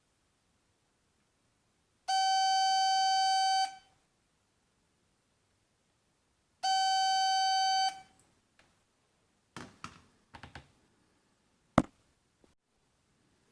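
Buzzer of a homemade toilet tank level indicator sounding twice, each time a steady beep of well over a second, the second starting about three seconds after the first ends. Several clicks and knocks follow, the sharpest one near the end.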